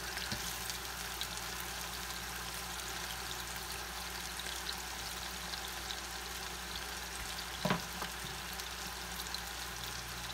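Ground-pork burger patties sizzling in butter in a skillet: a steady frying hiss with fine crackles. A brief, louder sound cuts in about eight seconds in.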